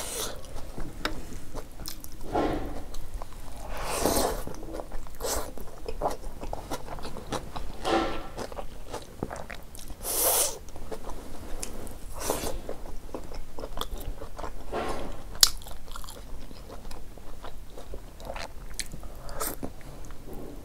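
Close-up eating sounds of a person eating rice and lentil dal with chicken by hand: chewing and wet mouth noises, with fingers mixing the food on a metal plate.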